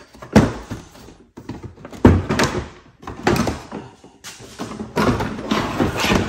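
Plastic body panel of a Honda Foreman ATV being pulled off its push-pin clips: a series of knocks and pops as the pins release, the two loudest about half a second and two seconds in, with plastic rattling and scraping between them.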